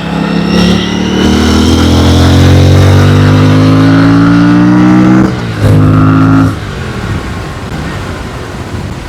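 Aprilia Tuono 457's 457 cc parallel-twin engine pulling hard under acceleration while riding, its note rising steadily for about five seconds. It cuts sharply about five seconds in, comes back briefly, then falls away quieter as the throttle is eased.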